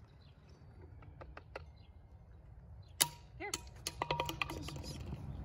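Clicks and taps from handling a plastic bottle and cup, a few faint ones first, then a sharp loud click about three seconds in with short squeaky tones, and a quick run of taps around four seconds.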